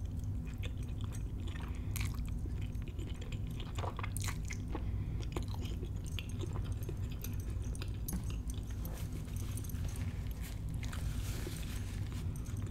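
Close-miked chewing of a mouthful of creamy fettuccine pasta: soft wet mouth smacks and small clicks over a low steady hum. Near the end, a short rustle as a paper napkin wipes the mouth.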